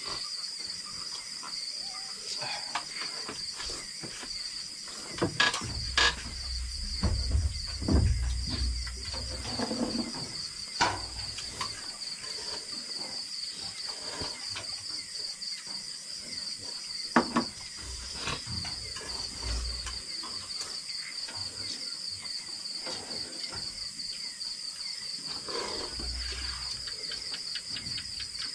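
Chorus of night insects chirring steadily, a continuous high-pitched pulsing trill. Between about five and eleven seconds in there is a low rumble with a few sharp knocks and clinks, and another sharp knock comes about seventeen seconds in.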